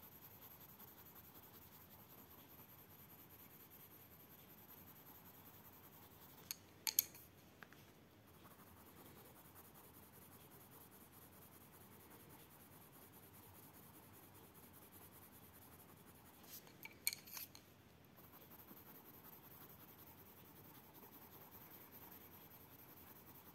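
Faint scratching of an Arteza coloured pencil shading on paper. Two short clusters of sharp clicks come about seven and seventeen seconds in, as pencils are swapped.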